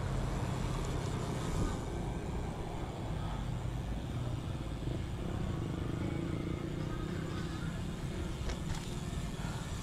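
Steady road noise of a motor vehicle's engine running close by, with a low hum.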